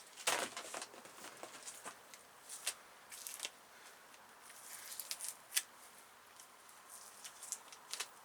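Greasy oil-impregnated paper insulation being picked and torn off scrap copper cable where the cut did not go all the way through. It makes irregular crackling, tearing and scraping sounds, loudest just after the start.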